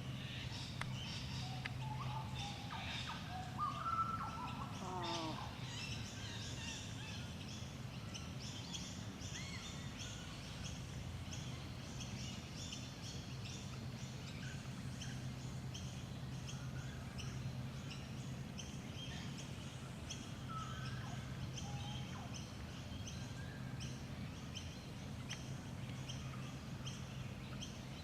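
Wild birds calling in the background: a few gliding, whistled calls in the first few seconds, then a long run of short, high chirps repeated over and over. A steady low hum runs underneath.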